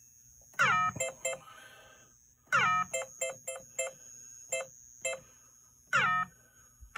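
Service-menu sounds from a Williams pre-DCS pinball sound board played through the test speaker: three short electronic tones, each falling quickly in pitch, with several quick beeps between them as the test menus are stepped through. The board is being tested after repair.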